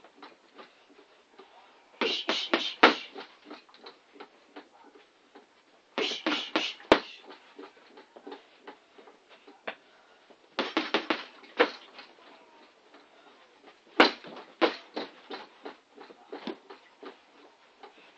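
Gloved strikes on an Everlast punching bag: quick flurries of several sharp hits about every four seconds, with fainter, scattered knocks between them.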